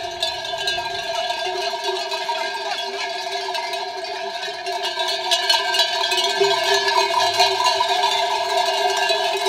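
Many sheep bells on the collars of a large passing flock clanking together in a dense, continuous jangle, growing louder about halfway through as the flock comes closer.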